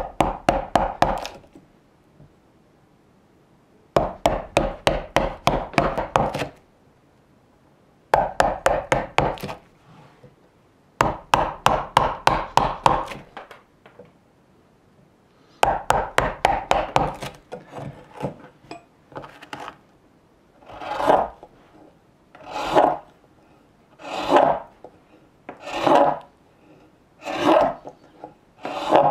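Wide carving gouge cutting into green birch. It is tapped with a mallet in quick runs of about five or six blows a second, and then, after about 18 seconds, pushed by hand in single slicing strokes about every second and a half.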